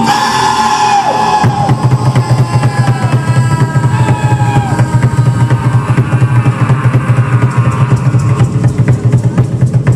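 Rock band playing loud music: held guitar tones give way about a second and a half in to a fast, steady bass drum beat under the drum kit.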